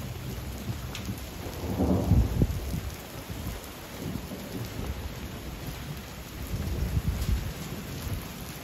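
Heavy rain falling steadily in a thunderstorm, with a roll of thunder swelling and fading about two seconds in and a weaker rumble later on.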